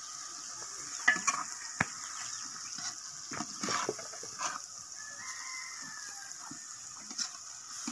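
A rooster crowing once, a long call from about five seconds in, over a metal ladle knocking and scraping against a metal cooking pot as vegetables are stirred, with a steady sizzle from the pot.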